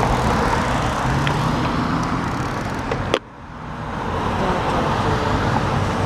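Cars driving past on a wet road: steady engine noise and tyre hiss. About three seconds in there is a sharp click, the sound drops off abruptly, and then it builds back up.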